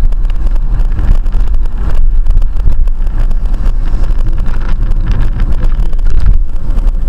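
Steady low rumble of a car driving at highway speed, road and engine noise picked up by a dashcam inside the cabin.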